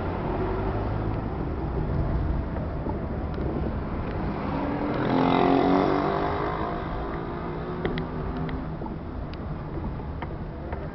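Engine and road noise of a moving car heard from inside its cabin, growing louder for a moment about halfway through with a rising and falling engine tone.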